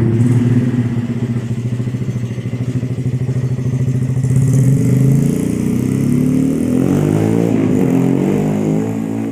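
Honda Win motorcycle's swapped-in Yamaha Jupiter single-cylinder four-stroke engine running steadily, then revved up in the last few seconds. It sounds healthy, with good compression and nothing leaking.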